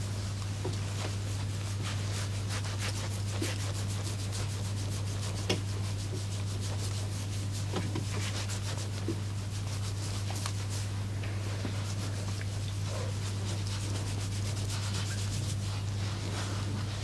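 Hands rubbing and stroking during a massage: a soft, scratchy friction made of many small, quick strokes, over a steady low hum.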